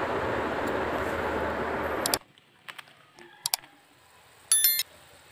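A steady hiss that cuts off abruptly about two seconds in, then a few sharp mouse clicks and a short, high bell-like chime near the end: the sound effects of an animated subscribe-button overlay.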